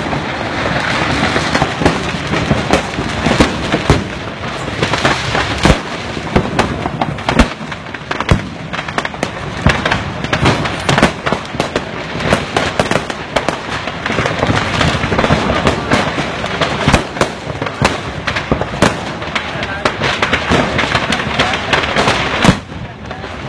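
A truckload of firecrackers burning and going off in a continuous rapid crackle of bangs, with a few sharper, louder reports standing out.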